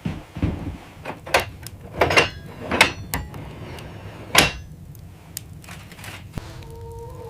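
A series of irregular knocks, about five of them, the loudest about four seconds in.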